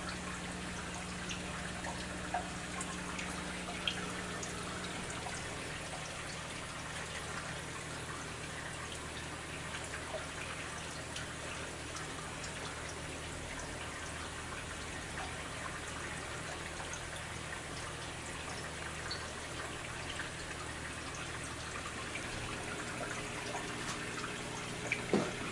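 Aquarium water trickling and dripping, with small ticks of drops and bubbles, over a steady low hum of running equipment. A couple of short knocks near the end.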